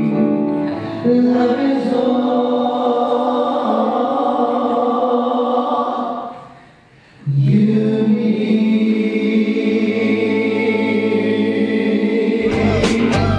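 Choir singing held chords. The singing fades out about halfway through and starts again abruptly. Near the end a rock track with guitar and bass cuts in.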